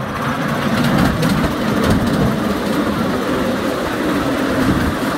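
Coal-fired miniature steam train running along its track and crossing a steel truss bridge: a steady rumble and clatter of wheels on rail, with a few sharp clicks about a second in.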